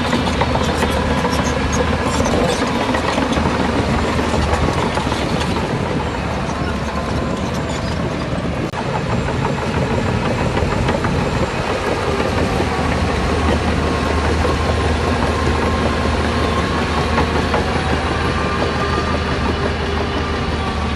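Heavy diesel earthmoving machinery running steadily under load, its engine pitch drifting slightly up and down.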